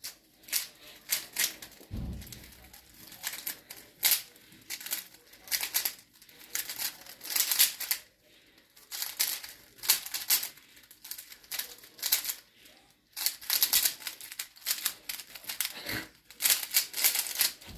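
Rubik's Cube being speed-solved: the plastic layers clack and click in rapid bursts of turns with brief pauses between them. There are a couple of dull knocks, one about two seconds in and one near the end.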